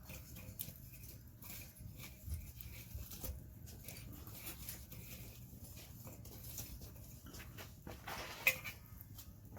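Wood fire crackling in a fire pit: scattered small snaps and pops over a low steady rumble, with one louder sharp sound about eight and a half seconds in.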